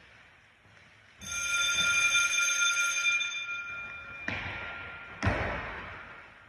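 A bright metallic ringing starts suddenly and fades over about three seconds. Then come two thuds, the second louder, each echoing in a large gym hall.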